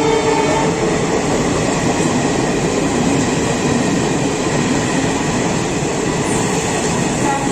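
Passenger train running along the line: a steady, loud noise of wheels on rails, with a few faint steady tones near the start that fade out within about a second.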